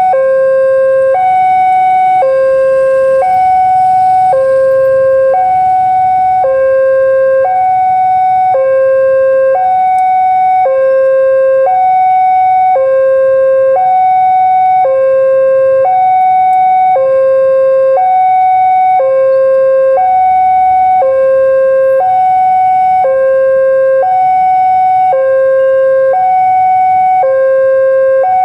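Railway level-crossing warning alarm sounding with the barrier down, signalling an approaching train: two electronic tones, one high and one low, alternating about once a second, steady and unbroken.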